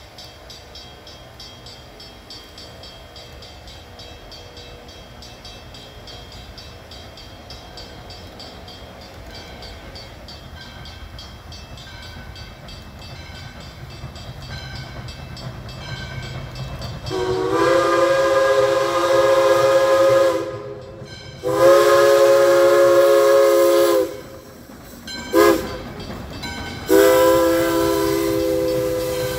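Steam locomotive whistle, a chord of several pitches, blowing the grade-crossing signal: long, long, short, long. It starts a little past halfway through and the last long blast is still sounding at the end. Before it, the low rumble of the approaching train slowly grows.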